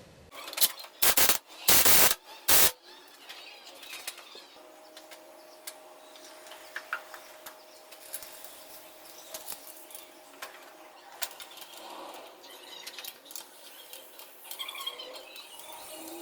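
Hand work on a motorcycle engine: four loud rustling knocks within the first three seconds, then scattered light clicks and taps of tools and parts.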